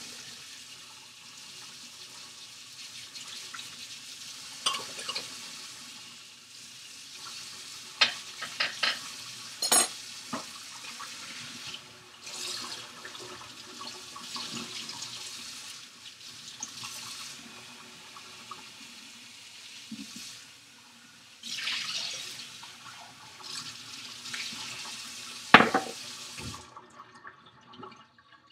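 Hot tap water running into a kitchen sink while dishes are rinsed under it, with scattered clinks and knocks of the dishes against the sink, the loudest knock near the end. The water briefly drops about two-thirds of the way in and shuts off shortly before the end.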